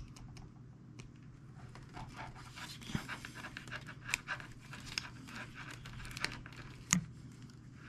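Faint scratching and small clicks of steel control-cable wire strands being pried apart and handled by fingers, with a sharper tick about three seconds in and another near seven seconds.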